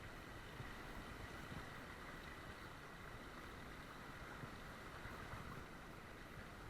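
Small creek's water running steadily, faint.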